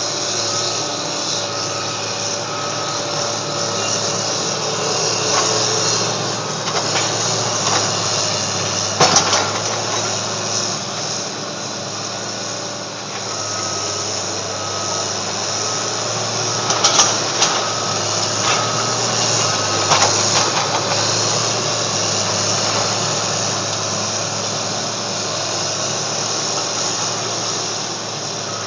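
Bulldozer's diesel engine running steadily under load as it pushes rubble, with a few sharp crashes and clanks of rubble in the middle part. A regular high beep repeats through parts of it.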